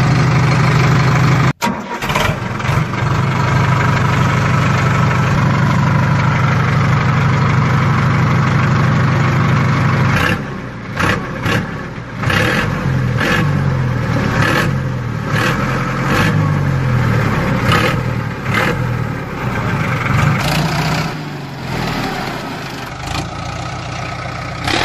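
A motor running with a steady low drone. From about ten seconds in its pitch wavers up and down, with several short dips in level.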